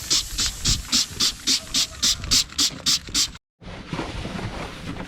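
Rhythmic scrubbing strokes on the mower's body, about four a second. After a sudden break about three and a half seconds in, the scrubbing is softer and uneven.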